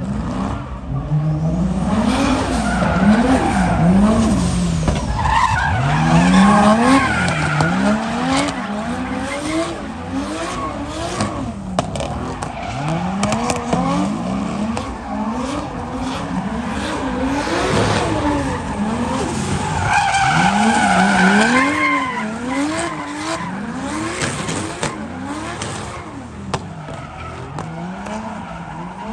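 Toyota 2JZ inline-six engine revving hard over and over, its note climbing and dropping quickly many times in a row. A higher-pitched wail rises over it twice, about five seconds in and again about twenty seconds in.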